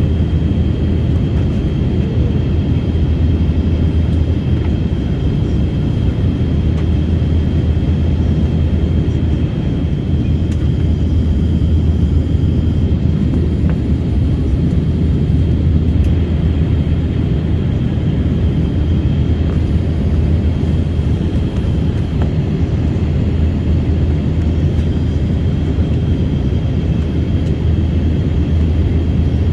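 Airliner cabin noise heard from a passenger seat: a steady low drone of the engines and airflow, with a faint steady high whine above it.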